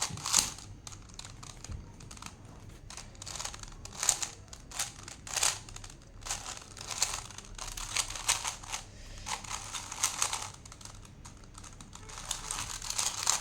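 Rubik's Cube being turned rapidly by hand during a speedsolve, its plastic layers clacking in uneven bursts of quick clicks.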